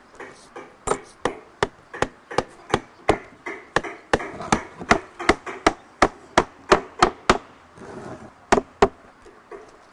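Hammer striking wood, a steady run of sharp blows at about three a second, then two more after a short pause, as when driving nails into a wooden box.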